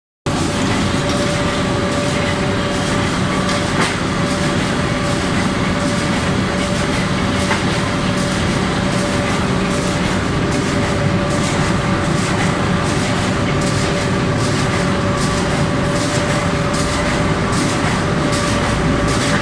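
Inline flexo printer slotter for corrugated carton boxes running: a steady mechanical hum with a constant whine and a quick, uneven clatter of clicks over it.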